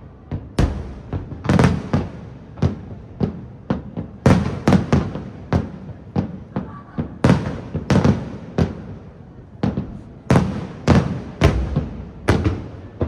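Aerial firework shells bursting in a rapid, irregular string of booms, roughly two a second, each echoing briefly.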